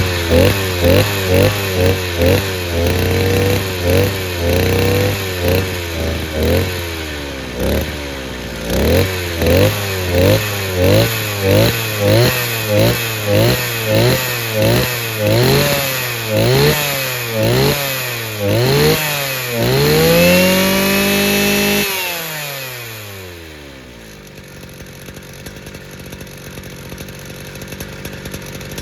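Mitsubishi T200 brush cutter's small two-stroke engine, fitted with a diaphragm (pump) carburettor and a lightly tuned cylinder, being blipped rapidly about twice a second, with a few longer holds at high revs. Near the end it is held at full revs for a couple of seconds, then the throttle is released and the revs fall away, leaving it much quieter.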